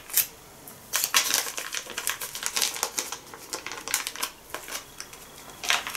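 Thin plastic packet of date paste crinkling and crackling as fingers work it, in a quick irregular run of small crackles.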